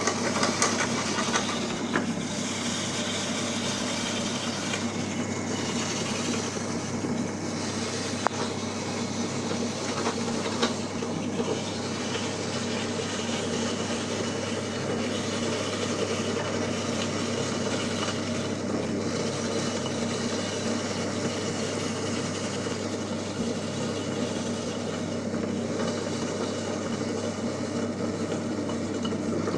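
Electric grinder fitted with a coconut-scraper blade, its motor running steadily while coconut is scraped, with a few sharp clicks in the first dozen seconds.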